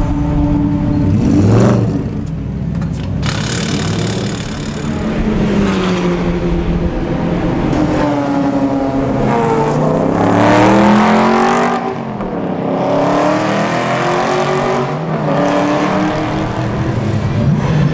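Aston Martin V8 Vantage race cars' V8 engines accelerating away and passing, several times in a row, the pitch climbing and falling with the revs and gear changes.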